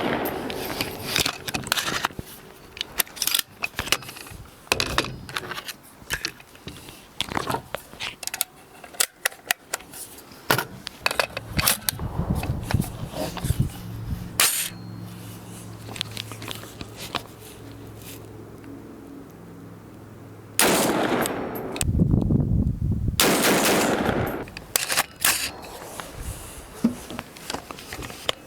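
Rifle shots from a semi-automatic AR-15 chambered in 7.62x39, fired repeatedly at irregular intervals, each a sharp crack with a short echo. Two louder stretches of rushing noise, each over a second long, come near the end.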